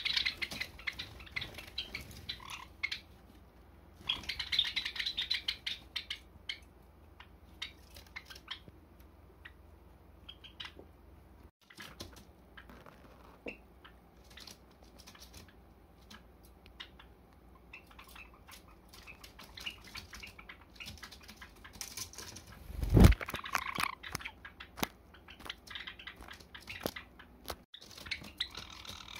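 Java sparrows moving about on rope perches: wing flutters, short chirps and many small clicks and scrapes of feet and beaks. A loud thump about 23 seconds in.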